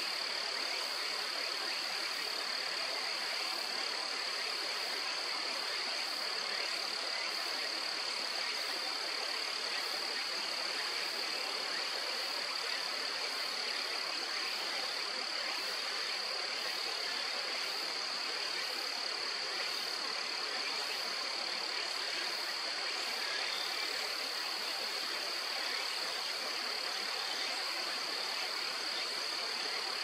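A steady, unbroken high-pitched chorus of calling animals over a soft even hiss, with no single call standing out.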